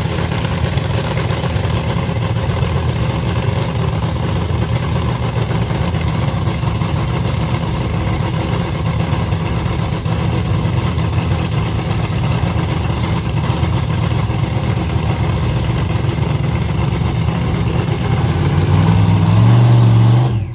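A loud engine running steadily, growing louder for the last couple of seconds before cutting off suddenly.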